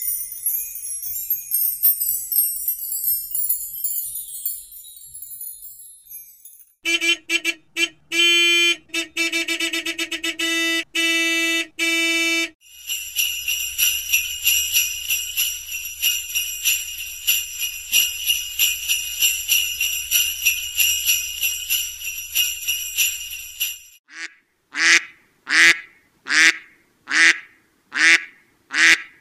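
A run of separate sounds, one after another. First, wind chimes tinkle for about six seconds. Next come repeated pitched notes, short at first and then longer, then sleigh bells jingling steadily for about eleven seconds, and in the last few seconds ducks quacking at about two calls a second.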